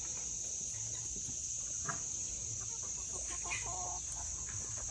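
Young chickens clucking softly a few times while foraging, with short calls about two seconds in and again between three and four seconds. A steady high insect buzz runs underneath.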